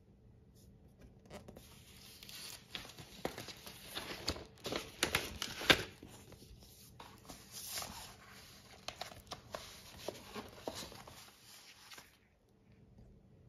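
Paper inner sleeves rustling and sliding as a vinyl LP record is handled and slipped into a white paper sleeve, with one loud sharp click about halfway through. The rustling fades out near the end.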